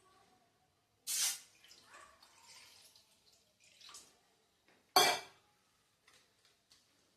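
Kitchen handling sounds: a short sudden noise about a second in and a sharp clink with a brief ring about five seconds in, with faint clatter between.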